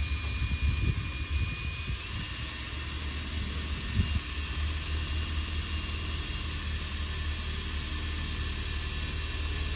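A power tool motor running steadily over a low rumble, with a thin whine that steps slightly higher about two seconds in.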